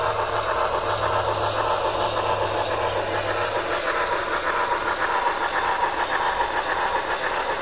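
Steady hissing run of an HO-scale model steam locomotive: the sound decoder's steam effects and the wheels on the track, with a low hum that stops about halfway through.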